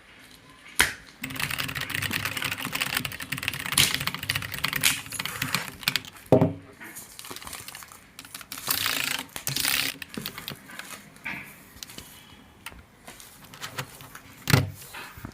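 A keyboard's packaging being opened and handled. Bursts of crackling rustle, tearing and clicking are broken by a few sharp knocks, about a second in, after about six seconds and near the end.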